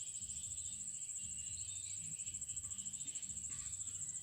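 An insect trilling: a steady, very high-pitched trill made of rapid, even pulses.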